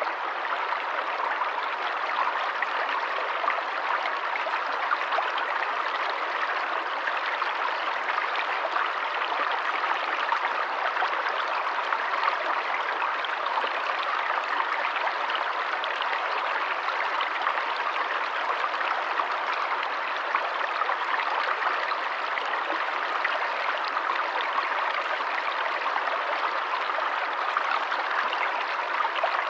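Forest stream of running water, flowing steadily with an even, unbroken rush.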